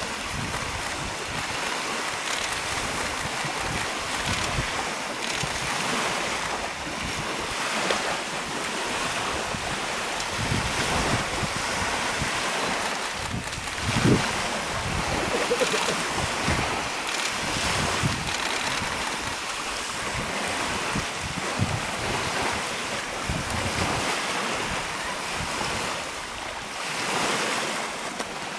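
Steady rush of running creek water with wind noise on the microphone. About 14 seconds in comes a loud splash as two brown bears scuffle in the shallow water, with lighter splashing around it.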